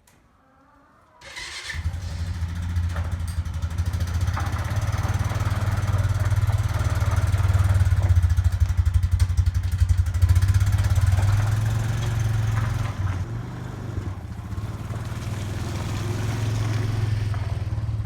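An engine starts about a second in and then runs steadily, getting louder for a few seconds in the middle before settling back.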